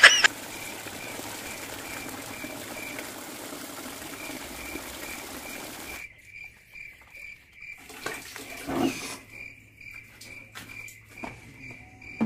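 Water running from a wall tap into a plastic bucket, stopping abruptly about halfway through as the tap is closed, followed by a few knocks and bucket-handling sounds. A cricket chirps in a steady pulse throughout.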